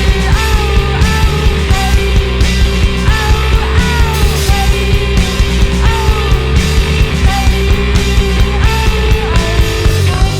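A rock band playing live at full volume: drums keep a steady beat under bass and guitars, with gliding melodic lines above.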